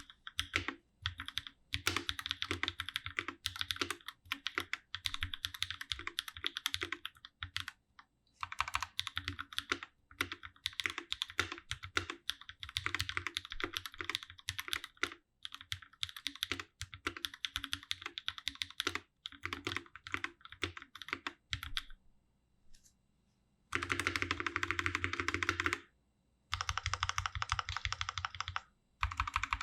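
Typing on a Space65 CyberVoyager 65% custom mechanical keyboard with Durock POM linear switches and GMK Striker keycaps, set on a desk mat. Keystrokes come in steady runs, break for about two seconds, then return as two very fast flurries of presses near the end.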